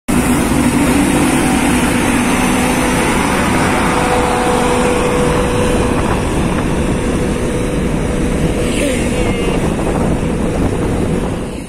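Volvo FM12 heavy truck's straight-six diesel running steadily under a heavy transformer load as it approaches, mixed with road noise. The sound cuts off suddenly at the end.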